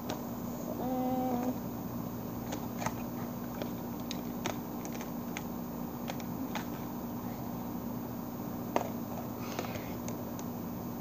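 Scattered light clicks and taps of hard plastic toy parts being handled and fitted together, the sharpest about nine seconds in, over a steady low hum. A brief steady tone sounds about a second in.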